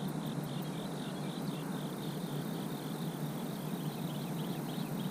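Insects chirping in a steady rhythm, about four pulses a second, over a steady outdoor hiss.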